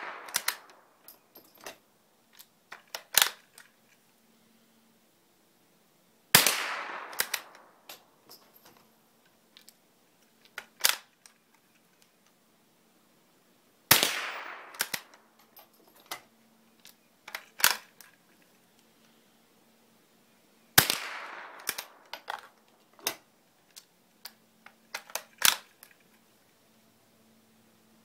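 A Marlin Model 122 single-shot bolt-action .22 rifle fires three times, about seven seconds apart, each shot a sharp crack that fades out over about a second. Between the shots come smaller metallic clicks of the bolt being worked and a round loaded.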